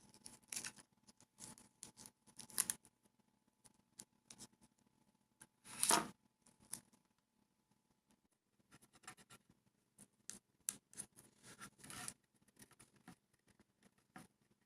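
Faint handling of stickers on a skateboard deck: scattered small clicks and paper rustles as sticker backing is peeled and the stickers pressed down, with two louder rustles about six and twelve seconds in.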